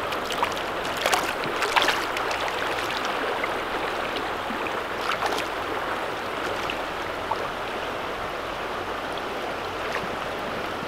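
River water flowing steadily over rocks, with a few brief splashes in the first couple of seconds.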